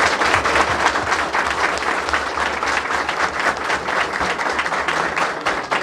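Audience applauding steadily: many people clapping together in a room, in answer to the end of a campaign speech.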